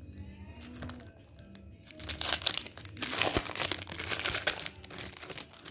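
Clear plastic packaging crinkling loudly as stationery is handled and unwrapped, from about two seconds in, after softer rustling and clicks.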